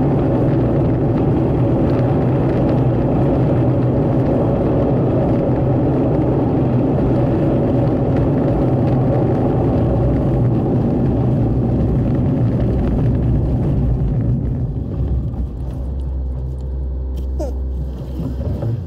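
Car cabin noise while driving on a dirt road: a steady rumble of tyres and engine. About fourteen seconds in it eases and gets quieter, as the car slows.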